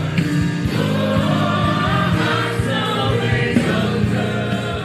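Gospel worship music: a choir singing over a band with a steady drum beat.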